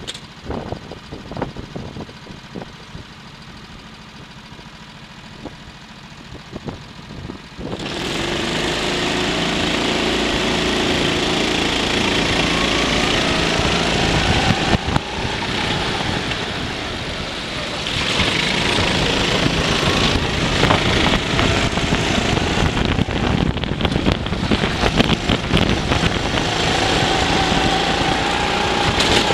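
Go-kart engine recorded onboard: it ticks over quietly with scattered knocks at first, then opens up about eight seconds in and runs hard at full throttle. Its pitch climbs and drops as the kart accelerates and slows through the corners.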